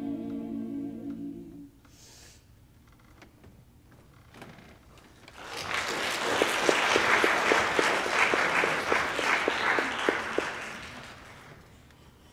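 A high school mixed choir holds its final chord, which ends about a second and a half in. After a few seconds of quiet, the audience applauds, and the applause fades out near the end.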